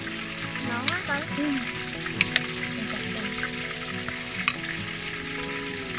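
A metal spoon stirring salted chopped tomatoes, chilies and garlic in a glass bowl, with a steady wet noise. The spoon clinks sharply against the glass about four times.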